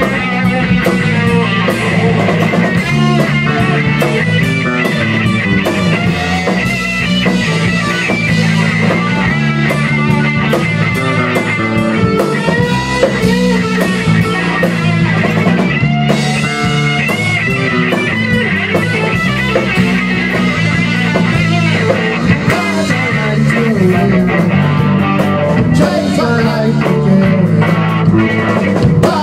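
Rock band playing an instrumental passage: electric guitar, bass guitar and a Tama drum kit.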